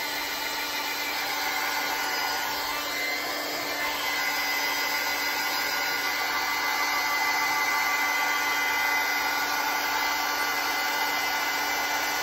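Handheld craft heat gun running steadily: a rush of blown air with a steady high motor whine and a lower hum, drying wet watercolour paint.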